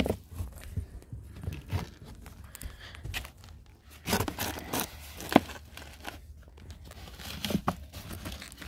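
Plastic plant pots being pushed and scraped into sand and soil, giving irregular crunching, rustling and a few sharp clicks. The busiest stretch comes about four to five seconds in, with one sharp click just after it.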